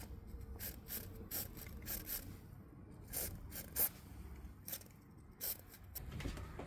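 Short hissing bursts at irregular intervals, about a dozen of them, from an aerosol can of lubricant sprayed onto a squeaking car door's hinges and check strap.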